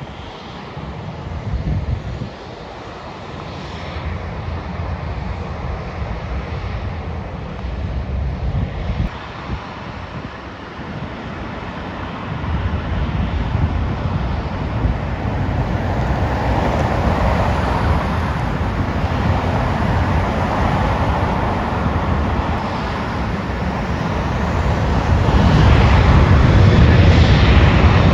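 Jet airliner engines, a rushing roar with a low rumble that grows steadily louder as the plane draws near, loudest near the end.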